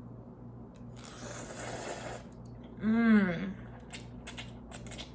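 Mouth-eating sounds of ramen: a slurp of noodles lasting about a second, then a short hummed 'mmm' that rises and falls in pitch, then a run of wet clicking chews and lip smacks.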